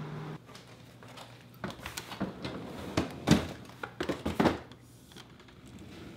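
Cardboard pizza boxes being pushed into a freezer drawer: a run of knocks and scrapes with crinkling of packaging, loudest about three seconds in.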